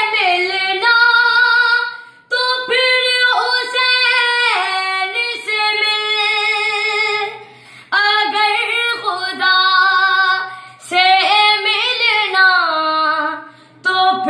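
A boy sings an Urdu salam, a Muharram devotional song, unaccompanied. He holds long, ornamented phrases with sliding pitch and breaks briefly for breath a few times.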